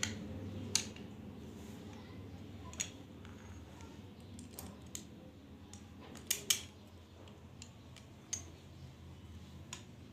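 Sharp metal clicks and taps from the parts of a Chinese B2 air rifle being handled and fitted together during reassembly: about nine separate clicks at uneven intervals, the loudest a close pair about six and a half seconds in.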